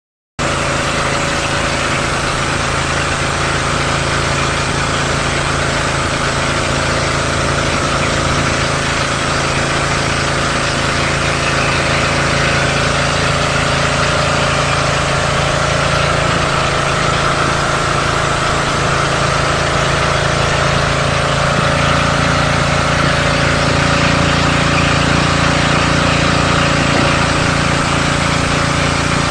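Outrigger motorboat's engine running steadily under way, with a constant hiss of water and wind over it. It cuts in abruptly about half a second in.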